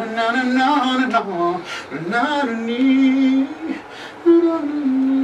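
An unaccompanied singing voice. It slides up and down in pitch over the first two seconds, then holds steady notes, with a brief jump higher a little after four seconds.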